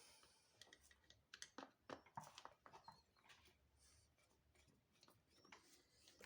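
Near silence with a few faint clicks and taps, mostly bunched about two seconds in.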